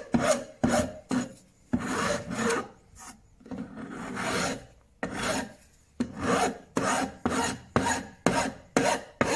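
Hand file rasping along the painted edge of a wooden table part, rounding it off with back-and-forth strokes. The strokes are longer and slower at first, then short and quick, about three a second, over the last few seconds.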